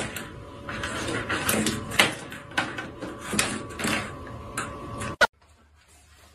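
A cat playing with a small plastic toy on a tiled floor by a door: irregular light clicks and taps that stop abruptly about five seconds in.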